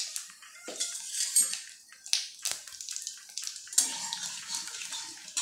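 Cumin seeds and whole spices crackling and sizzling in hot mustard oil in a metal kadai, with sharp pops throughout. Near the end a metal spatula scrapes and clinks against the pan as it stirs.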